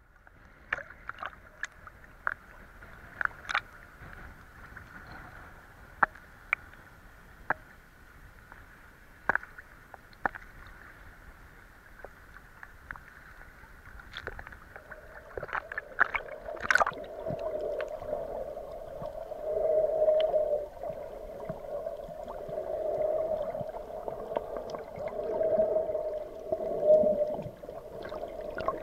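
Water lapping and splashing against a snorkeler's action camera at the surface, with scattered sharp clicks. About halfway through the camera goes under and the sound turns to a louder, wavering underwater gurgling of moving water and bubbles.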